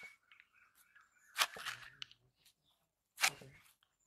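Knife blade forced through the rind and firm flesh of a young green jackfruit, with a few short crunching, tearing bursts as the fruit is split open.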